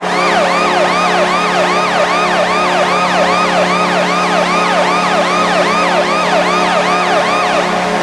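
Hockey arena goal horn of the Cincinnati Cyclones, 1998–2000: a steady low horn blast with a fast warbling siren over it, about two and a half whoops a second.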